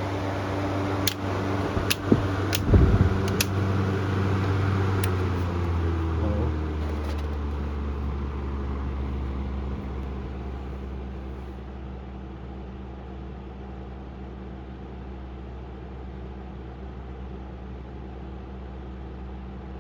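Honeywell HT-70-19 10-inch table fan running on high, with a few sharp clicks in the first few seconds. The fan is then switched down: its hum slides lower in pitch and gets quieter over several seconds, then settles into a steady low speed.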